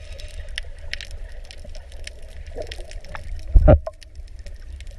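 Underwater sound picked up by a camera in the sea: a steady low rumble of moving water with a scatter of crackling clicks, and one loud low thump about three and a half seconds in.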